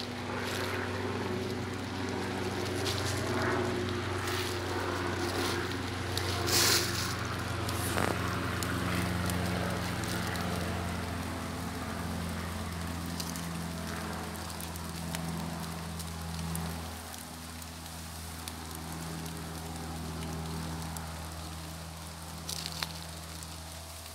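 Footsteps and rustling in dry leaf litter and chestnut burrs, with scattered sharp crackles, over a steady low mechanical hum in the background.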